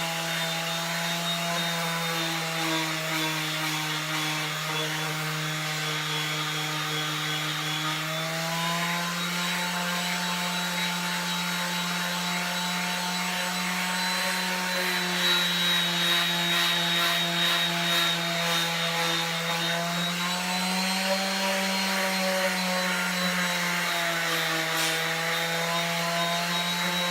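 A random orbital sander with 220-grit paper runs steadily against a cast iron pan. Its motor hums over the rasp of the abrasive on the iron. The hum shifts in pitch a couple of times. This is the finest-grit pass, polishing out swirl marks to a mirror finish.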